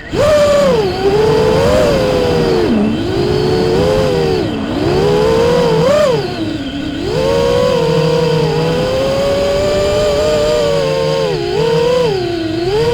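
FPV quadcopter's motors and propellers whining, the pitch rising and falling with the throttle and dipping sharply several times.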